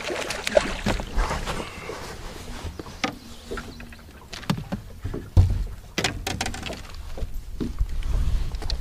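Water splashing as a hooked bass thrashes at the surface beside a boat, then short knocks and clatter as the fish is swung aboard and handled, the loudest knock about halfway through. A low wind rumble sits under it all.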